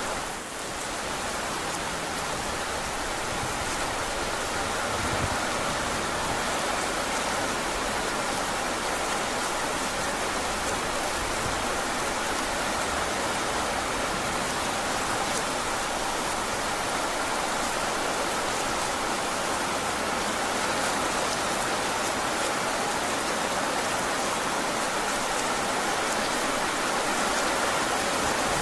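Heavy rain falling steadily, an even rushing hiss with no thunder.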